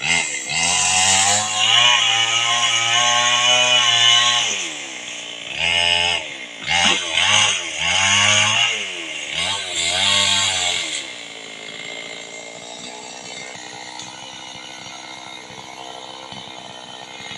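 Two-stroke chainsaw held at full throttle for a few seconds, then revved up and down in several short bursts. About eleven seconds in it drops to a steady idle.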